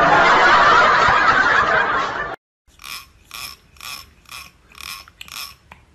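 A loud, even hiss of noise cuts off about two seconds in. Then the teeth of a comb are strummed with a fingertip six times, about twice a second, each stroke a short ratcheting rasp.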